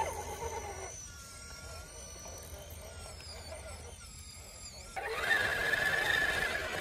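Electric motor and gear drivetrain of an RC rock crawler whining as it climbs rock, the pitch wavering up and down with the throttle. It gets louder about five seconds in.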